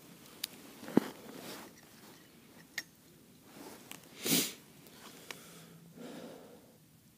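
Scattered small clicks and knocks from a short winter ice-fishing rod and its reel as a groundbait feeder is lowered into the hole, with a sharp click about a second in and a short breathy noise a little after four seconds in.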